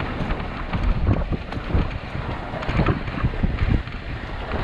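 Strong wind buffeting the microphone aboard a sailboat under way, with the irregular low thumps of gusts over a steady rush of wind and water.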